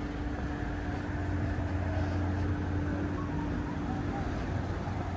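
Vehicle engine running: a steady low hum with a higher steady tone that fades out about four seconds in.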